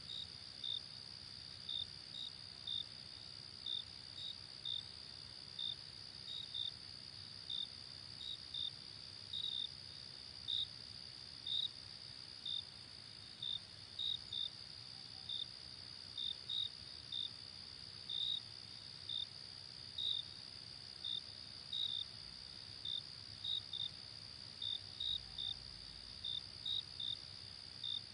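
Night-time insect chorus of crickets: a steady high trill with short chirps over it, repeating irregularly about once or twice a second.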